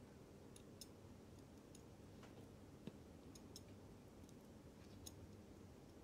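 Faint, irregular small clicks of brass tweezers touching and placing parts on a Ricoh 21-jewel automatic watch movement, over near-silent room tone.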